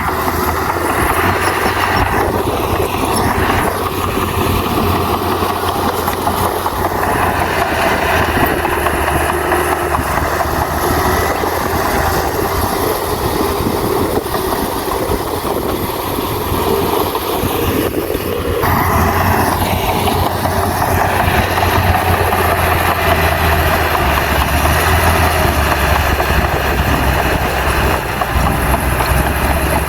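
Crawler bulldozer's diesel engine running under load with the clatter of its working, a steady, loud heavy-machinery din. The engine note shifts a few times, sharply about two-thirds of the way in.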